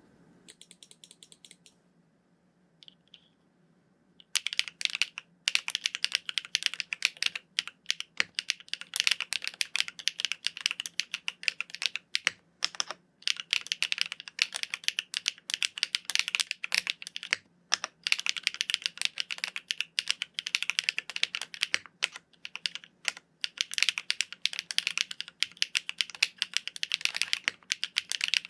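Fast, continuous typing on a mechanical keyboard with Keygeek PA linear switches, a polypropylene plate and GMK ABS keycaps: a dense clatter of keys bottoming out. It starts about four seconds in, after a few faint clicks.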